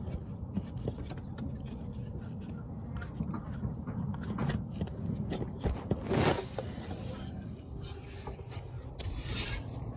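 Hands working a small hose off its fitting at the EGR valve in an engine bay: irregular rubbing and scraping with light clicks, and a louder scrape about six seconds in.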